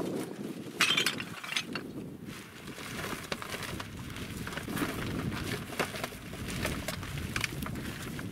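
Full black rubbish bags of dumped waste being handled and heaved onto a small pickup truck's load bed: plastic rustling with scattered sharp clinks and knocks of hard objects inside, the loudest a little under a second in.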